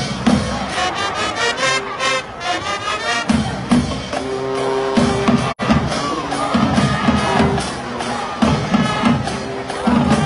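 High-school marching band playing: drums beating out a rhythm under held brass notes, with a crowd cheering. The sound drops out for an instant about halfway through.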